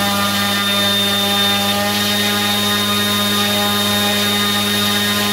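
750 kV brushless motor spinning a propeller on a thrust test stand near full throttle, drawing about 9 amps: a steady propeller drone with a thin high motor whine. The pitch rises slightly about two seconds in as the current is pushed up towards the maximum.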